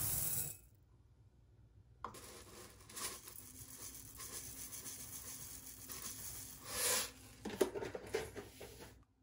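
Dry rice and mixed grains poured into a Cuckoo rice cooker's inner pot, a hissing rattle of grains landing. A brief pour at the start, then after a pause a longer, uneven stream with a few stronger surges near the end.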